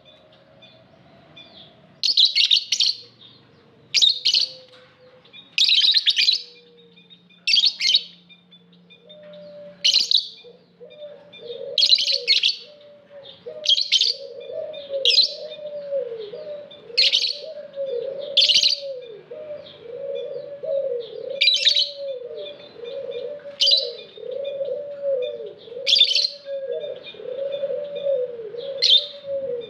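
Lovebirds giving loud, shrill chirps, one sharp call about every two seconds. From about a third of the way in, a lower warbling call with repeated dips in pitch runs steadily underneath.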